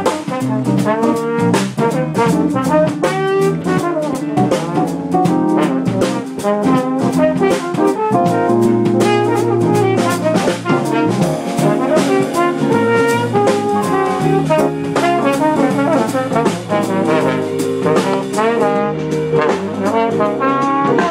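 Live jazz band with the trombone playing the lead line over piano, bass and drums that keep a steady beat.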